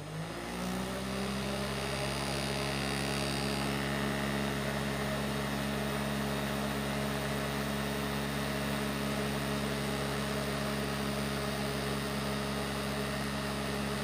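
Small electric fans of a homemade cardboard air cooler switched on, spinning up with a hum that rises in pitch for about a second, then running steadily with a rush of blown air.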